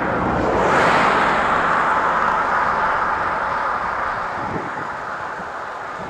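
Road-vehicle noise: a steady rush of tyres and engine that swells about a second in and slowly fades.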